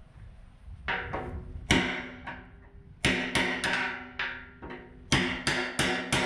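Hammer blows on a steel tool set in the cut seam of a large steel propane tank, about a dozen strikes in uneven groups starting about a second in. The tank rings after each blow with a steady bell-like tone.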